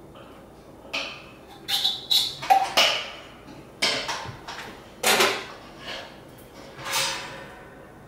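Stainless steel lid and top of an Anvil Foundry electric brew kettle clanking as they are handled. There is a string of separate knocks and clanks, several close together in the first few seconds, some with a brief metallic ring.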